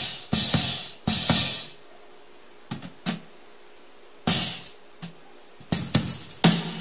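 Drum kit playing kick, snare and cymbal hits, demo audio run through a dbx 166A compressor/limiter/gate. The hits stop for about two seconds in the middle, with only a couple of light taps, and then resume busier near the end.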